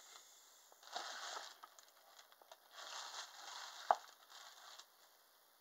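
Pin-box packaging and pin cards being handled, crinkling and rustling in two short spells, with one sharp click about four seconds in.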